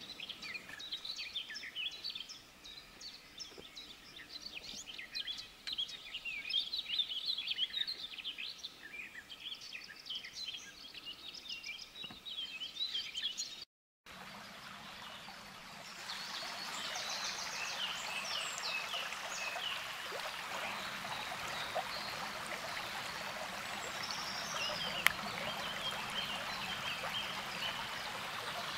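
Wild birds singing, many overlapping chirps and trills. About halfway through the sound cuts out briefly, and then a steady rushing hiss takes over with a few birds still calling over it and a single sharp click near the end.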